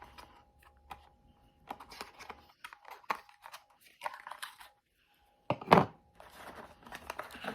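Packaging of a makeup brush being torn open by hand: scattered tearing and crinkling rustles, with one sharper, louder tear a little past the halfway point.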